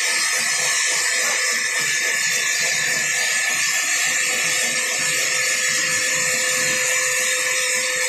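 Large sawmill band saw resawing a teak slab: a loud, steady high-pitched hiss with a steady tone beneath it.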